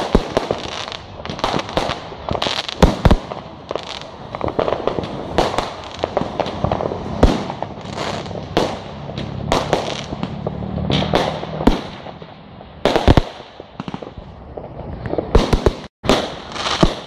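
Aerial fireworks going off in quick succession, a dense run of sharp bangs with crackling in between, the loudest about three and thirteen seconds in. The sound cuts out for an instant about a second before the end.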